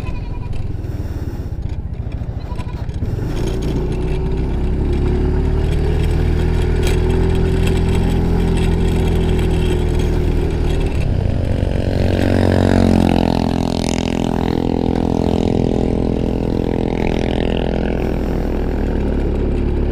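Yamaha Mio i 125 scooter's single-cylinder engine running while riding on the road. The engine note holds fairly steady, then shifts and bends about eleven seconds in.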